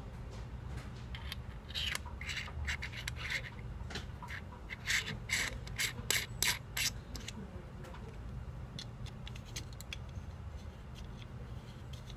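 Threads of a clip-on phone lens's wide-angle and macro elements being turned and screwed together by hand, scraping and clicking in short bursts that come loudest about two seconds in and again around five to seven seconds in. A steady low hum runs underneath.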